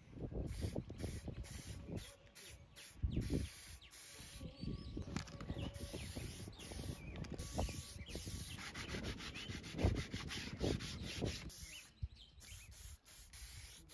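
Aerosol clear lacquer spray can hissing in many short bursts, on and off, over a low rumble.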